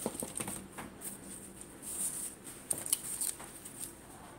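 Faint clicks, taps and rustles of a phone being handled and moved, with a few sharper clicks about two and three seconds in.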